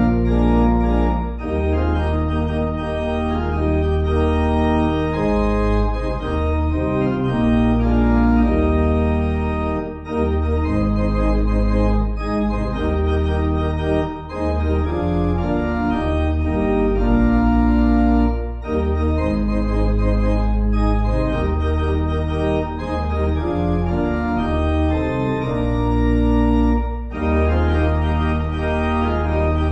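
Organ playing a hymn tune in held chords that change every second or two, over a strong steady bass line.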